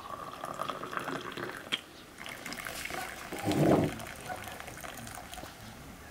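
Tea pouring from a teapot into a glass tea glass, with a slowly rising note, then hot water running from a samovar's tap into a glass, loudest a little past the middle.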